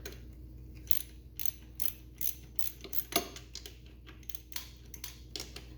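Hand ratchet wrench clicking in short strokes as the bolts of a dirt bike's cam chain tensioner are backed out: a run of separate, irregular clicks, one louder about three seconds in.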